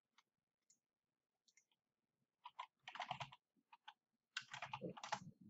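Computer keyboard typing with mouse clicks: a few scattered clicks, then two quick runs of keystrokes about two and a half and four and a half seconds in.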